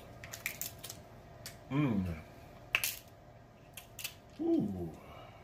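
Snow crab leg shells being cracked and pulled apart by hand: a run of sharp cracks and snaps, the loudest about three seconds in. Twice, around two seconds and near the end, a short falling "mmm" of enjoyment from the eater.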